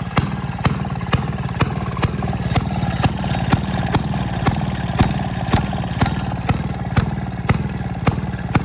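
Maytag model 92 single-cylinder two-stroke washing-machine engine running on a cold start after ten years unused, now firing on a new spark plug. It runs steadily, with a sharp crack about twice a second over a continuous drone.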